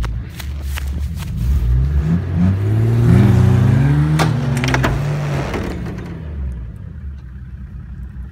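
Nissan Patrol's engine revving up hard under load as it pulls on a snatch strap: the pitch climbs, holds, then falls away and fades. A few sharp clicks sound near the middle.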